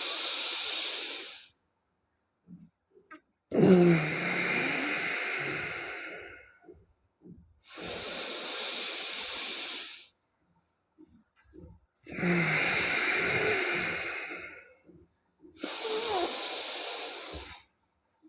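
A person breathing deeply and forcefully through the nose as a yogic breathing exercise meant to clear nasal blockage. Long, loud, hissing breaths of two to three seconds each follow one another with short pauses between.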